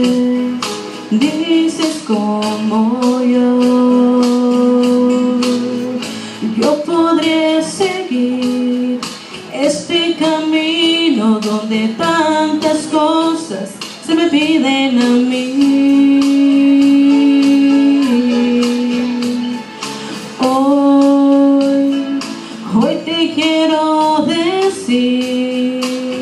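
A woman sings a praise song into a microphone, holding long notes with vibrato, over instrumental accompaniment with a steady beat.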